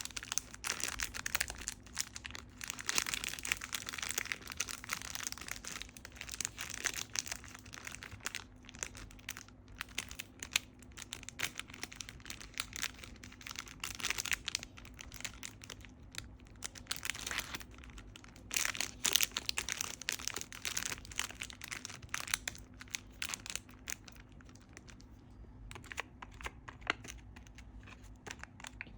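Homemade fidget board being handled: continuous crinkling and rustling with many small, quick clicks, easing off a little for a few seconds near the end.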